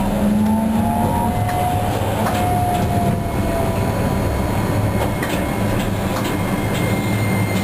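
Cabin noise of a Toyohashi Railway T1000 low-floor tram running on street track: a steady low rumble of wheels on rail, with a faint motor whine that shifts in pitch over the first few seconds and a few scattered clicks.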